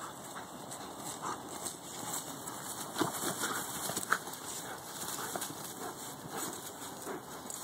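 Feet and paws scuffling and trampling on dry leaves and grass while a dog holds its bite on a padded bite suit. There are scattered sharp clicks, the sharpest about four seconds in.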